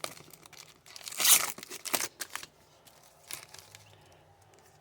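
Trading card pack wrapper being torn open and crinkled by hand, in rustling bursts that are loudest about one to two and a half seconds in, with one more short rustle a little later.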